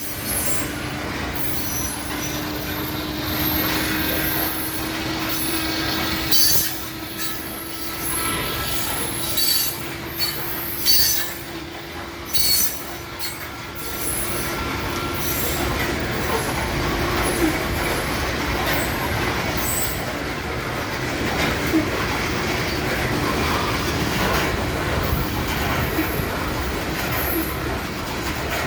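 Freight cars rolling past on the rails, with a continuous rumble and a steady low tone that rises slightly over the first half. Short high-pitched wheel squeals come and go during the first half.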